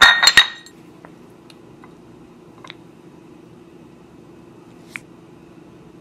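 Two ceramic sauce dishes clinking and ringing as they are knocked together and set down on a wooden cutting board, several sharp strikes in the first half second. A few faint small clicks follow, one near the end.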